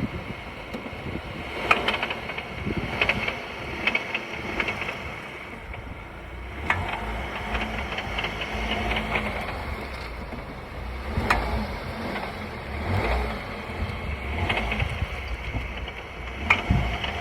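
VW Tiguan running with a steady low hum, broken by irregular sharp knocks every one to few seconds. The clunk is an unidentified rattle that the owner suspects comes from the drivetrain on load change, the gearbox or the dual-mass flywheel.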